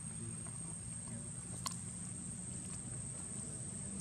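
Steady outdoor background: a low hum under a constant thin high tone, with a few faint sharp clicks, one more distinct about a second and a half in.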